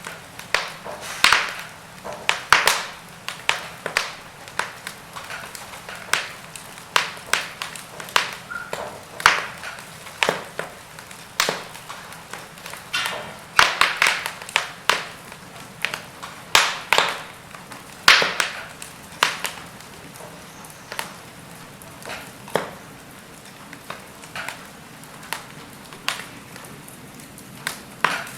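Burning logs in a fireplace crackling: irregular sharp pops and snaps over a soft steady hiss, busy for most of the time and sparser near the end.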